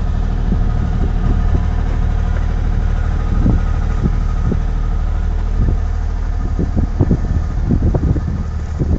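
An engine running steadily at idle, with irregular knocks and thumps over it that come more often near the end.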